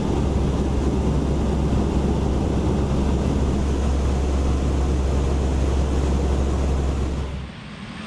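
Steady low drone of propeller aircraft engines with a rushing hiss over it; it falls away sharply about seven and a half seconds in.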